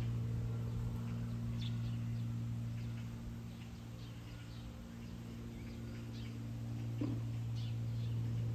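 Small birds chirping here and there over a steady low hum.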